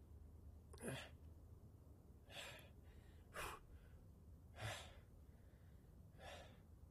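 Five short, faint breaths from a man, spread a second or so apart over a quiet room tone.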